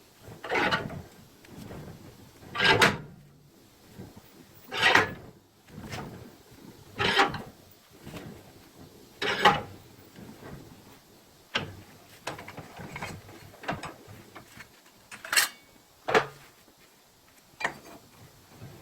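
Mechanical clunks with short sliding scrapes, about one every two seconds, followed by a few sharper clicks near the end.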